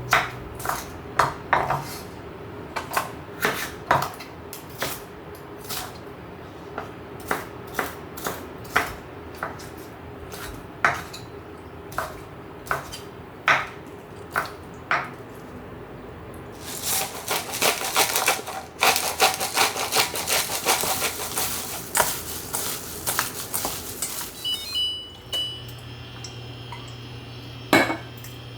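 Kitchen clatter: utensils knocking and clinking against dishes about once or twice a second, then a denser stretch of rapid clattering and scraping for several seconds past the middle.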